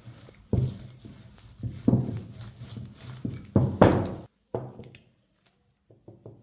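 Wooden rolling pin rolling out dough on a silicone mat: a run of uneven rolling strokes and knocks that stops about four seconds in. A few faint clicks follow near the end.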